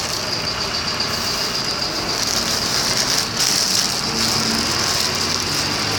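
City bus engine running as the bus pulls away, over steady street traffic noise.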